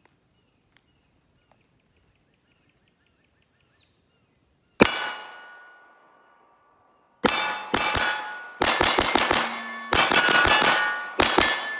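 STI 2011 DVC Open compensated pistol firing 9mm major at steel targets. One shot comes about five seconds in, then a fast string of about fourteen shots over the last four and a half seconds, the steel plates clanging and ringing on after the hits.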